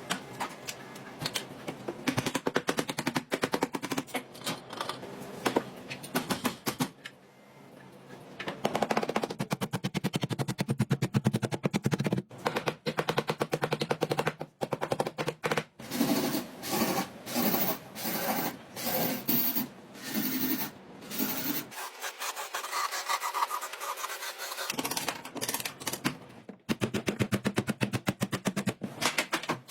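Rapid mechanical clatter, a fast even train of clicks that stops and starts several times.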